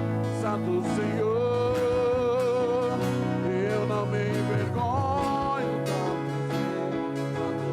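Live worship band music: sustained bass and chords under a slow, wavering melody line with long held notes.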